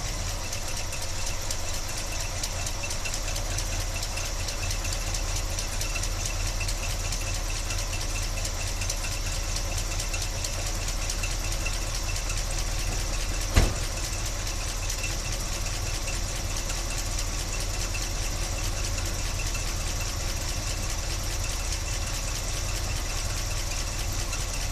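1976 Chevy Blazer engine idling steadily, heard close up under the open hood, where the owner is trying to track down a horrible noise. One sharp click about halfway through.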